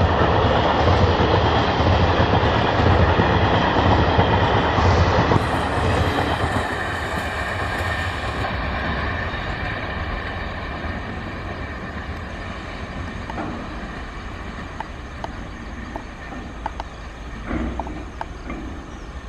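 Express passenger train coaches rolling past at speed, their wheels rumbling loudly on the rails. After about five seconds the sound fades steadily as the rear of the train draws away, with a few faint clicks from the wheels near the end.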